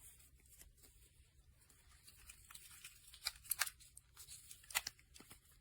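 Faint handling noise of a small plastic handheld fan, with a few sharp light clicks in the second half as it is handled and its fold-out stand set.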